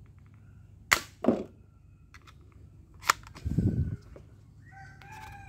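Sharp plastic snaps and clicks of a spring-loaded toy dart gun being cocked and fired, two close together about a second in and another about three seconds in, followed by a short dull thud. A rooster starts crowing near the end.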